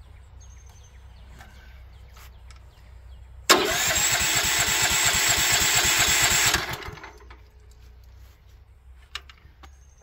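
The portable sawmill's gasoline engine cranked by its starter for about three seconds, pulsing evenly with each compression stroke, then stopping without the engine catching. A sharp click follows near the end.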